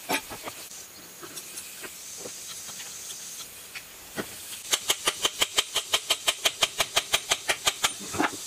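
A hammer tapping quickly on the metal housing of a self-priming pump's electric motor to work it apart, about seven light strikes a second for about three seconds, after a few scattered clicks of handling. A steady hiss runs underneath.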